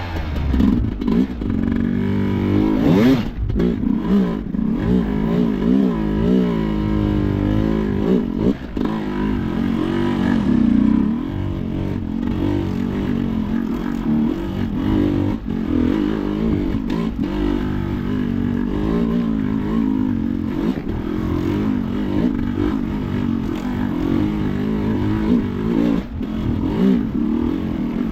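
An enduro motorcycle engine (Sherco) being ridden hard off-road, the revs rising and falling over and over as the throttle is worked. The swings are widest in the first ten seconds or so, then turn into quicker, smaller bursts, with knocks and clatter from the bike throughout.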